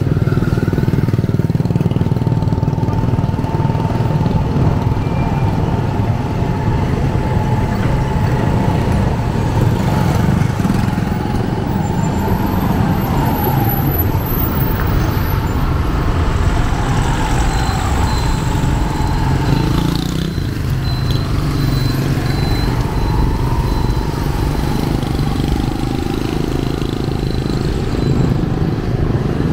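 Street traffic at close range: engines of cars, minibuses and motorcycles running as they pass. The rumble is steady, with a wavering engine whine through it.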